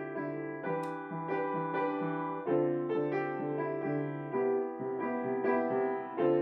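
Background piano music: a gentle run of evenly paced notes.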